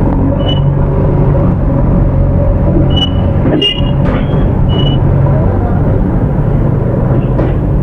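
Single-cylinder engine of a Hero XPulse 200 motorcycle running at low speed and idling as it pulls up to a fuel pump, a steady low drone, with a few short high beeps and a brief knock.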